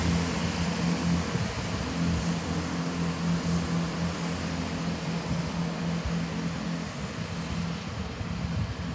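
Class 166 Turbo diesel multiple unit moving away, its diesel engine giving a steady humming drone over the rumble of the train. The hum fades out about seven seconds in as the train draws off.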